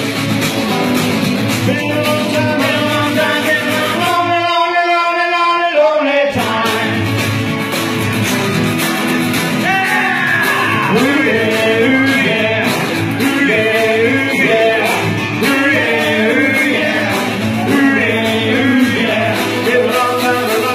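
Live rock and roll band playing a song with a lead singer. About four seconds in, the bass and drums drop out for about two seconds, leaving a single held note, then the full band comes back in.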